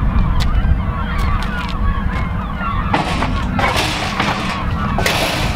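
A flock of birds calling over one another in many short, overlapping honking calls, above a steady low rumble. Louder noisy bursts come about three seconds in and again near the end.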